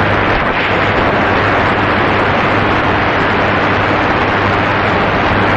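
Portable shortwave radio receiver putting out steady loud static hiss with a faint low hum underneath, and no station audible through the noise.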